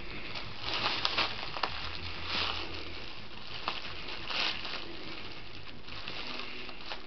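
Small cat licking and nibbling at a bag of valerian root: soft irregular rustling and licking noises, with a few small clicks in the first couple of seconds.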